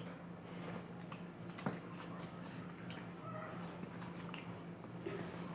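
Close-miked mukbang eating sounds: people chewing mouthfuls of pancit noodles and chicken fillet, with metal forks and spoons clicking on the food, one sharper click about a second and a half in. A steady low hum runs underneath.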